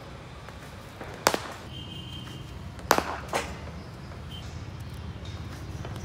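Cricket ball meeting a cricket bat with a sharp crack about a second in, then two more sharp knocks a little under two seconds later, about half a second apart, from the ball striking the bat and the pitch during net practice.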